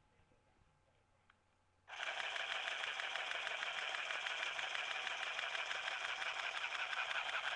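Battery-powered handheld Easy Stitch pocket sewing machine switched on about two seconds in, running with a fast, even clicking.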